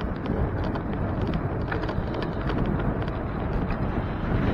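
Wind rushing over the microphone and road rumble of a bicycle riding along a city street, with scattered light clicks and rattles throughout.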